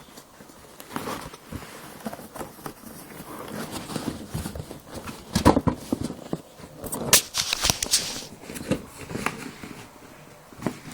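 Handling noise of vacuum cleaner attachments and their cardboard box being gathered up: scattered knocks and clatters with bursts of rustling, the loudest knocks about halfway through and a second or two later.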